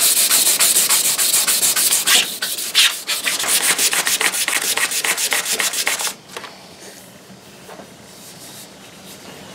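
Fine 320-grit sandpaper on a sanding block rubbed quickly back and forth along a wooden axe handle, about five or six strokes a second, during finish sanding. The sanding stops about six seconds in.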